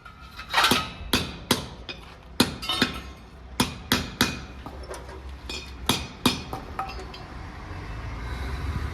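Hammer striking metal, about fifteen sharp ringing blows at an uneven pace, typical of fitting a motorcycle silencer and its mounting bracket. The blows stop a few seconds before the end, and a low rumble builds in their place.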